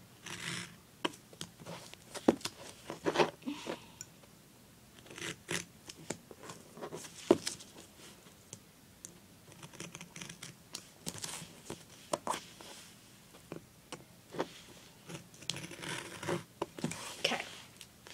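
Duct tape being cut and trimmed away from a paper template on a cutting mat: irregular sharp snips and clicks, scraping, and short crinkling rustles as the tape is handled.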